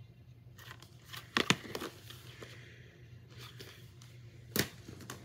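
Handling noise as movie cases are moved about: rustling, with sharp clacks about a second and a half in and again near the end.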